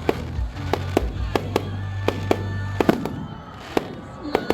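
Fireworks going off in an irregular series of sharp bangs and cracks, about a dozen in a few seconds, over music with a steady low bass.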